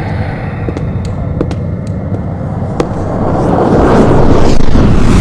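Rumbling noise from the play's sound effects, with a few sharp clicks in the first three seconds. It swells loudest from about three and a half seconds in.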